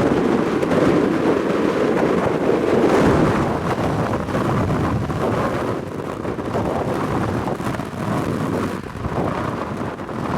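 Strong gusty wind buffeting the microphone, a loud rumbling rush that rises and falls with the gusts and eases a little after about six seconds.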